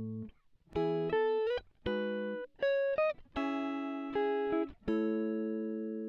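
Background music: a clean guitar picking chords and single notes, each struck and left to ring and fade, with a few short upward slides between notes.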